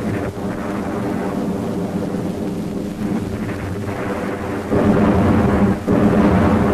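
War-film soundtrack: a deep, continuous rumble with held low tones in it. It grows louder about five seconds in and dips briefly just before six seconds.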